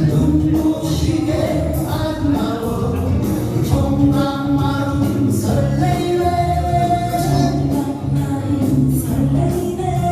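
A song: a voice singing a held, bending melody over instrumental accompaniment with a regular beat.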